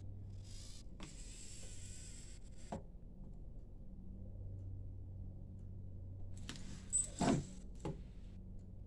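Servo motors of a myCobot desktop robot arm running as the arm plays back a recorded motion. There is a low hum that swells and fades, a stretch of higher whirring with clicks near the start, and a few clicks and a sharper knock about seven seconds in.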